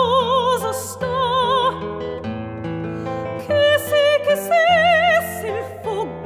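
A woman singing in a classical style with wide vibrato, accompanied by a plucked acoustic guitar. She holds notes, pauses for about a second and a half while the guitar plays on alone, then sings a higher phrase.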